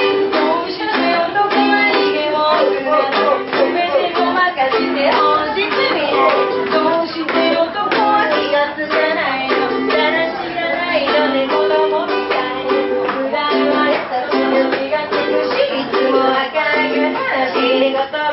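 Live song played on strummed ukulele, with a woman singing the melody over the steady strumming.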